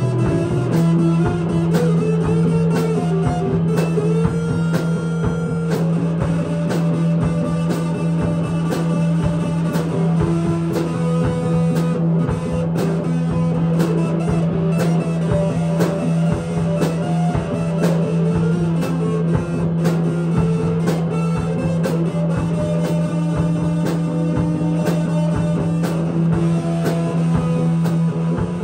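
Live rock band playing: semi-hollow electric guitar, electric bass and drum kit, with a steady low note held underneath from about a second in.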